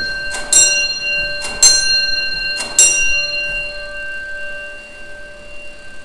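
Gamewell fire alarm gong struck three times about a second apart, its ringing tones fading away after the last stroke. The strokes tap out the code of the alarm box that was pulled.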